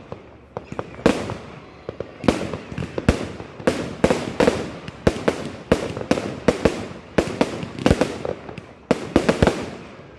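Fireworks exploding in a rapid, irregular barrage: many sharp bangs, at times several a second, each trailing off in a short echo.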